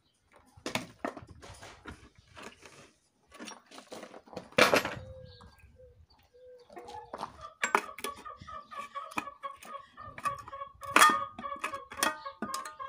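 Irregular knocks, taps and scrapes of hand tools against the wooden mold boards and metal clips inside a cement washtub, with one loud knock a little under five seconds in. From about seven seconds a steady tone runs underneath.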